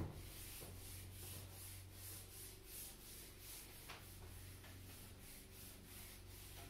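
Handheld whiteboard eraser wiping marker off a whiteboard in quick back-and-forth strokes, a faint swishing about three times a second.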